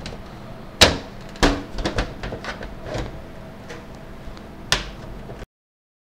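The back side panel of a Deepcool Matrexx 50 PC case being fitted onto the case: a series of sharp knocks and rattles, the loudest about a second in. The sound cuts off suddenly near the end.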